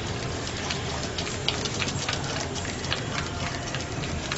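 Wooden spoon stirring thick custard in a metal pot as it cooks stiff, with irregular light clicks and scrapes of the spoon against the pot over a steady low hum.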